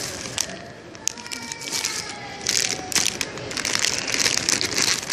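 Clear plastic bags of packaged squishy toys crinkling and crackling in irregular bursts as they are handled and shifted in a box.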